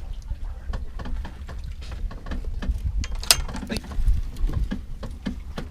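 Irregular small clicks and knocks of gear being handled on a fishing boat, with one sharper click a little after the middle, over a steady low rumble.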